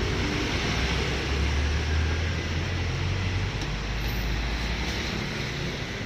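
Street traffic noise: a steady hiss with a passing vehicle's low rumble, loudest from about one to three and a half seconds in.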